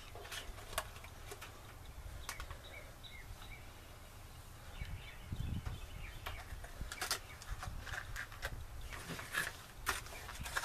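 Scattered soft clicks and crinkles of plastic lure packaging being handled, with faint bird chirps now and then in the background.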